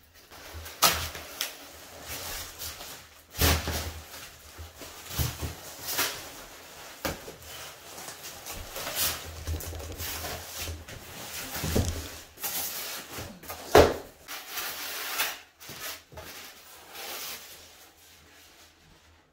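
Cardboard furniture packaging and plastic wrap being handled and opened: irregular knocks, scrapes and rustling, with a sharp knock about a second in and another louder one a little past two-thirds through.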